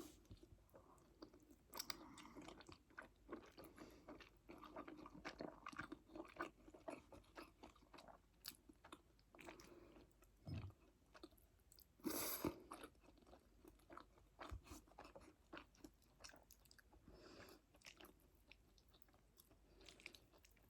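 Faint, close-miked chewing: a run of small wet clicks and smacks from a mouthful of food, with a louder bite or smack about 12 seconds in.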